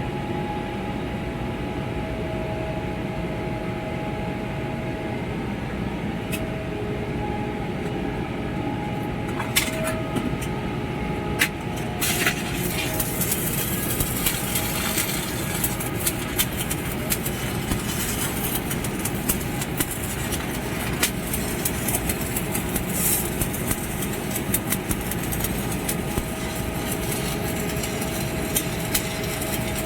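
Stick welding arc crackling and sputtering in dense rapid ticks, starting about twelve seconds in after a couple of single clicks, over the steady running noise of site machinery.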